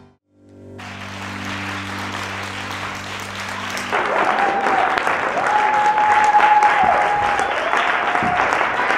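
Audience applauding as the dance music ends, a low held chord sounding under the clapping for the first few seconds. About four seconds in the applause grows louder, with long drawn-out cheers over it.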